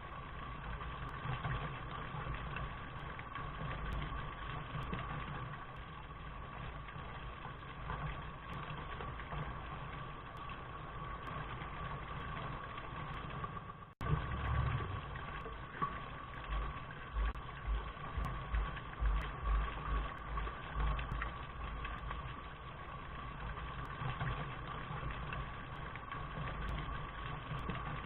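Steady rain with a low rumble underneath. The sound drops out for an instant about halfway, and irregular low thumps follow.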